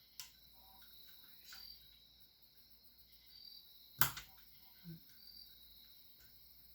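A few light clicks and taps of plastic keyboard key switches being handled, with one sharper click about four seconds in, over a faint steady high-pitched whine.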